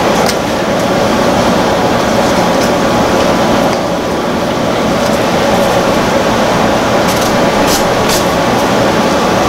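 Window air-conditioning unit running with a steady, even rush of fan noise. A few short clicks come near the end.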